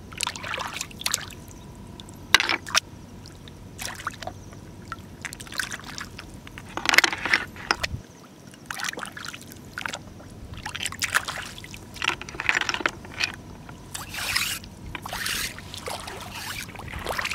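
Hands splashing and sloshing in shallow seawater, with water trickling, in irregular bursts and a few sharp knocks.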